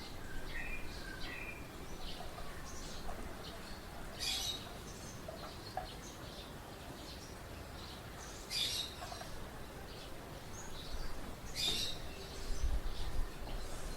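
Small birds chirping: many short, high chirps, with a louder, sharper call about every three seconds. A low background rumble grows louder near the end.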